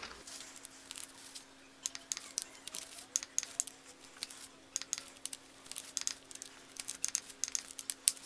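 Irregular faint clicks and rustling from a torque wrench being worked on the cam sprocket bolts of an LS V8 as they are torqued down, over a faint steady low hum.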